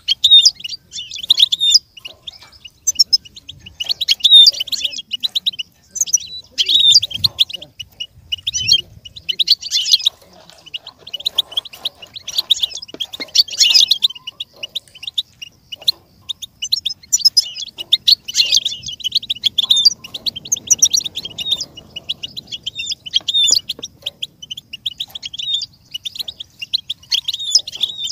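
European goldfinch song: fast, twittering trills and sharp chirps in bursts of a second or two, with brief gaps between them.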